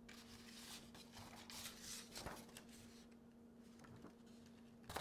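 Near silence: a faint steady low hum with a few soft paper rustles.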